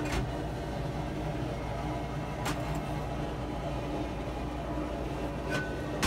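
Steady low hum in the background, with a few light clicks and knocks as a cast-iron shift fork is handled and turned over on a perforated steel sheet, one near the start, one about halfway and one near the end.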